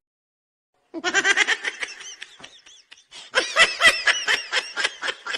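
High-pitched laughter in quick repeated bursts, starting suddenly about a second in after dead silence, easing off briefly midway and then picking up again.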